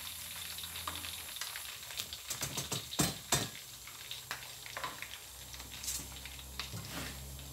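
Hot oil sizzling and crackling steadily in a steel wok as food fries. A metal spatula scrapes and knocks against the wok a few times between about two and three and a half seconds in, the two loudest knocks about half a second apart.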